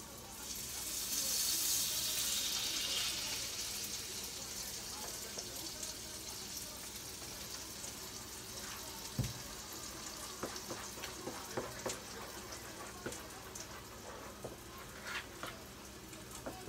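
A hissing rush that swells and fades over the first few seconds, then a wooden spatula scraping and tapping against an aluminium pot as thick pancake batter is stirred by hand, with one dull knock partway through.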